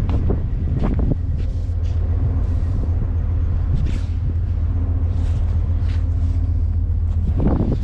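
Steady low engine rumble, with a hiss of rushing air or water and brief swishes every second or so.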